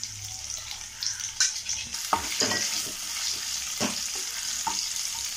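Hot oil sizzling in a nonstick kadai as green chillies fry with cumin seeds and curry leaves, with a wooden spatula stirring and scraping against the pan several times.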